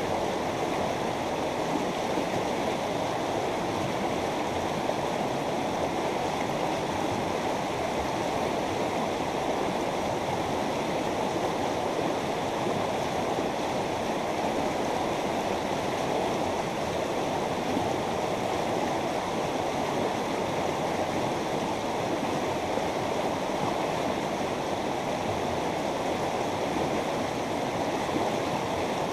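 Mountain river flowing over rocks: a steady, even rush of running water.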